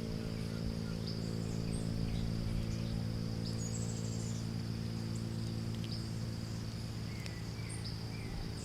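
Outdoor ambience of steady insect buzzing, high and unbroken, with scattered short bird chirps over it, all above a steady low droning hum of a running motor.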